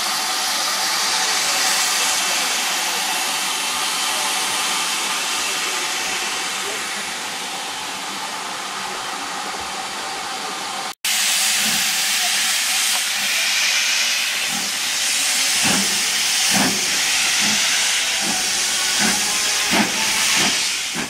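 Steam hissing steadily from the Victorian LSWR Adams T3 steam locomotive No. 563, with a short break about halfway. In the last few seconds a run of soft low thuds sounds over the hiss.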